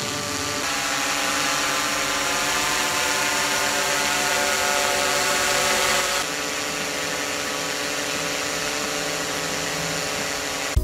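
Background music of dense, held droning tones that change abruptly about half a second in and again about six seconds in.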